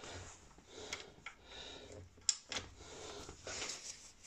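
Faint, scattered light metallic clicks and ticks of a brake caliper bolt and hand tool being handled, as copper grease is put on the bolt threads.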